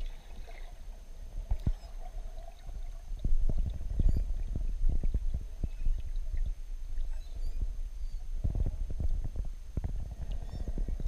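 Underwater sound picked up by a camera held below the surface. Irregular low thumps and knocks come from water moving around the camera and from the snorkeler's movements, with a denser run of knocks near the end.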